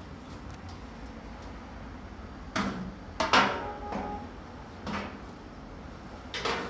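The front panel of a Samsung front-load washer cabinet being worked loose and lifted off: a handful of short knocks and clunks, the loudest about three and a half seconds in, followed by a brief metallic ring.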